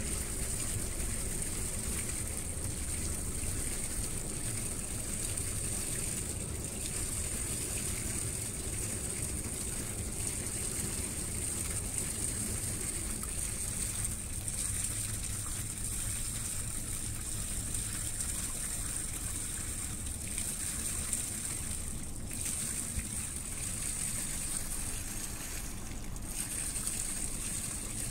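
Steady rush and gush of water stirred up between a large tanker barge and the lock wall as the vessel moves slowly past, over a low even rumble. A steady high hiss runs above it throughout.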